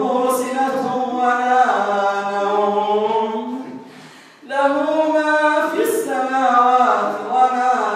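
An imam chanting the Quranic recitation of the prayer aloud in long, drawn-out melodic phrases, with a breath pause about four seconds in before the next phrase.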